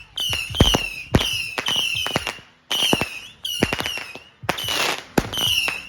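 Fireworks going off: a run of high, wavering whistles in short bursts with irregular gaps, mixed with sharp pops and cracks. A brief crackling hiss comes near the end.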